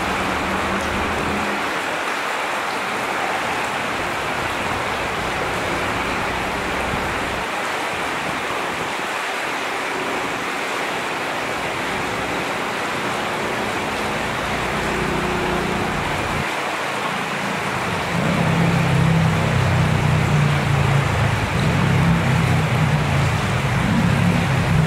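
Fast creek water rushing and splashing over rocks, a steady hiss. A low rumble comes and goes beneath it and grows louder in the last several seconds.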